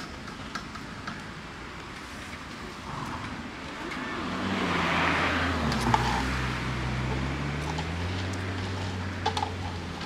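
A motor vehicle passing on the road: its engine grows louder about four seconds in, is loudest around the middle and then eases off, the engine note dipping and rising again. A few sharp clicks are heard over it.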